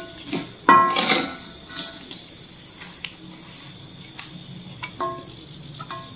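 Metal spatula and spoon clinking and scraping against a wok as a heap of crisp fried crickets is lifted and drained of oil. A few ring out sharply, around a second in and again near five seconds. A high, pulsing cricket trill sounds faintly behind.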